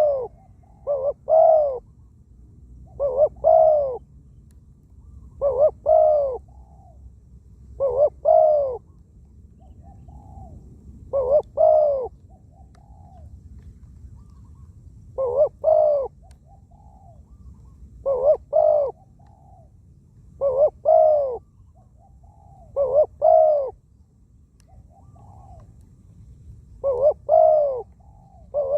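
Spotted doves cooing. One bird close by repeats a loud phrase of two or three arched coos about every two and a half seconds, and fainter coos from a second dove come in some of the gaps.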